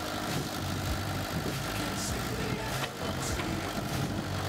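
Komatsu mini hydraulic excavator's diesel engine running steadily under working load while the boom lifts and swings a bucket of soil, with a thin steady whine above the engine note.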